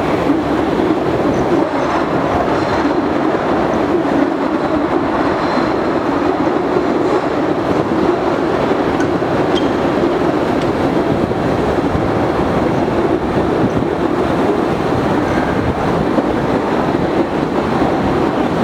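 Postojna Cave's tourist train running steadily along its track, a constant rumble and rattle of wheels on rails.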